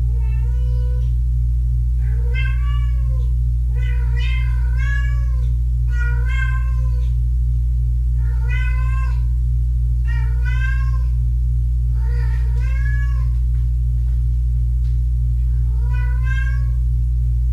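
Kittens meowing over and over, high arching calls about every one to two seconds, some overlapping, over a steady low hum.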